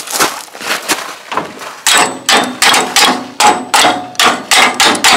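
Hammer striking the rusty steel push-guard mount of an International B414 tractor to free the push guard. A few lighter knocks at first, then steady blows about three a second from about two seconds in.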